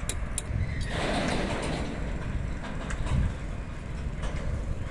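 Loaded petrol tank wagons of a freight train rolling past, a steady low rumble of wheels on rail with a few sharp clicks and a brief rush of noise about a second in.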